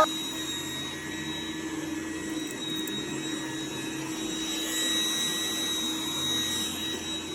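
Vacuum cleaner running steadily with a constant motor whine, swelling a little about halfway through.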